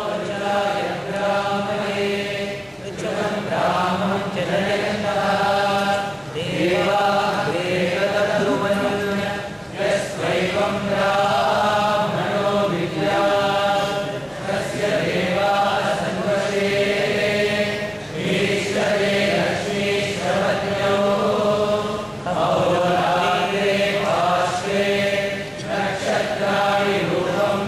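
Sanskrit chanting: voices reciting verses on a melodic line, in phrases of a few seconds with brief pauses between.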